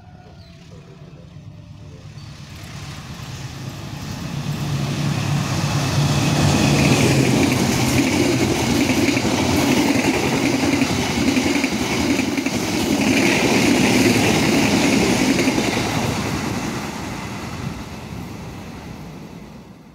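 Passenger train hauled by a diesel locomotive passing close by at speed: the locomotive's engine drone swells as it approaches, then a long steady rumble of the coaches' wheels on the rails, fading near the end.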